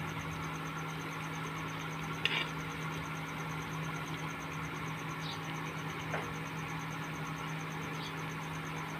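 Oil sizzling around nonbari fritters deep-frying in a kadai, over the steady hum of an induction cooktop. A few light clinks of a slotted steel spoon against the pan, the loudest about two seconds in.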